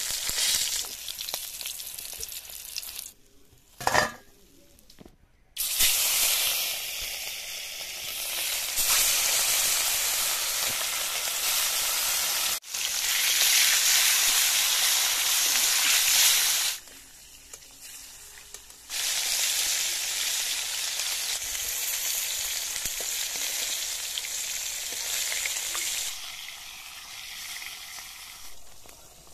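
Fish pieces sizzling as they fry in hot oil in an aluminium kadai, turned with a metal spatula. The sizzle drops away briefly a few times, and there is one sharp knock about four seconds in.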